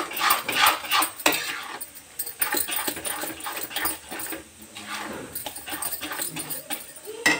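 Spatula scraping round a metal kadhai as thick, grainy carrot halwa is stirred, in quick, even strokes for about the first second, then quieter. Faint whining sounds that rise and fall in pitch come through in the second half, and one sharp scrape comes near the end.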